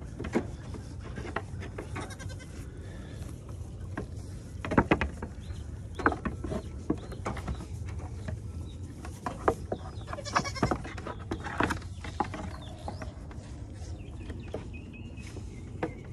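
Goats bleating a few times, mostly in the second half, among scattered knocks and rustles; the loudest knocks come about five seconds in.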